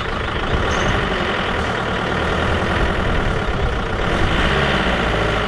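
A car engine running at a steady idle.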